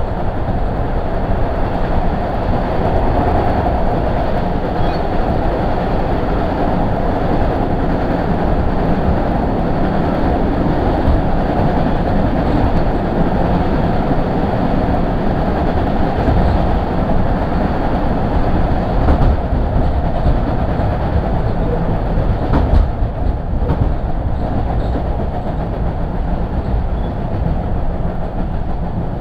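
MBTA Red Line subway car running at speed, heard from inside the car: a steady rumble of wheels on rail, with a couple of faint sharp clicks from the track about two-thirds of the way through.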